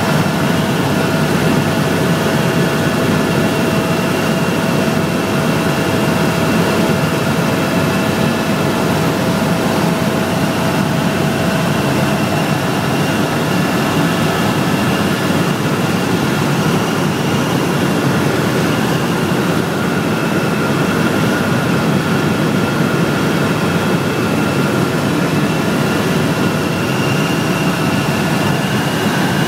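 Helicopter engine and rotor noise heard inside the cabin in flight: a loud, steady drone with a few constant high-pitched tones running over it.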